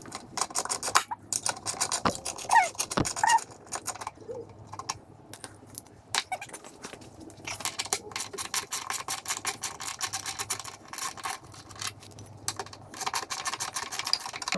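Ratchet wrench clicking in bursts of rapid clicks with pauses between, loosening the bolts of a cover plate on a Kawasaki 650SX jet ski, with a few short squeaks and a knock about three seconds in.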